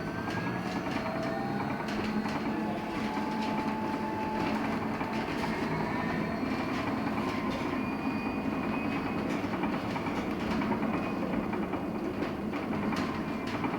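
Inside a LiAZ-6274 electric bus on the move: the electric traction motor's whine rises in pitch as the bus speeds up, then holds steady about nine seconds in, over road and tyre noise. Light rattles and clicks from the cabin run through it.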